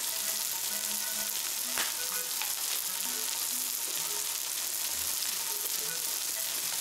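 Meat sizzling steadily on a yakiniku grill, a continuous hiss of frying fat.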